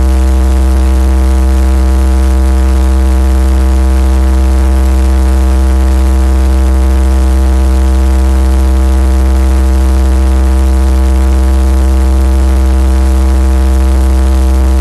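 Robinson R22 Beta II helicopter's four-cylinder Lycoming O-360 piston engine and two-blade main rotor running on the ground, heard from inside the cabin. It makes a loud, even drone with a strong low hum that holds steady throughout.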